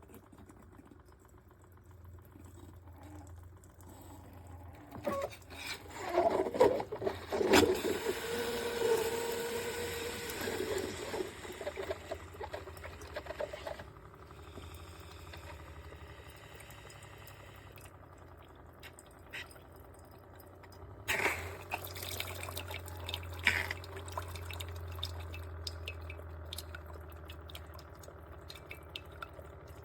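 Cuisinart SS-16 coffee maker running: water gurgling, trickling and dripping, with a few knocks. A low hum comes in over the last third.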